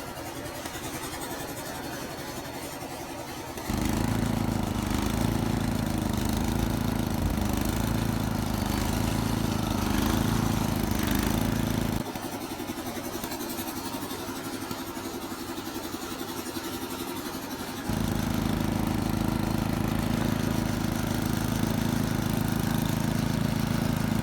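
Snowblower engine running steadily, under test after a new drive belt was fitted. It is quieter at first, suddenly louder from about 4 s, drops back abruptly near 12 s, and is loud again from about 18 s.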